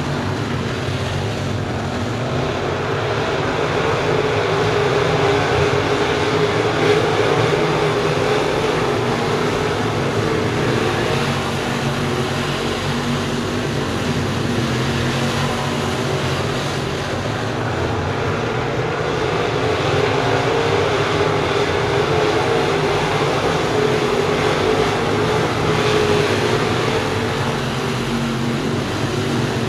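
A pack of dirt-track crate late model race cars with crate V8 engines running laps together, a steady engine drone. It swells louder twice as the field comes past.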